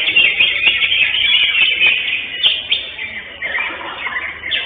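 Greater green leafbird (cucak hijau) singing a loud, continuous stream of fast chirps and trills.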